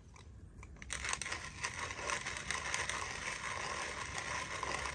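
A hand-cranked metal spice mill grinding spices: a steady, gritty crunching rattle as the crank turns. It starts about a second in, after a few faint clicks.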